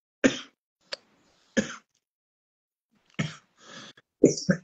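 A woman coughing and clearing her throat in a series of short, separate bursts, about five or six in all, the last two close together near the end.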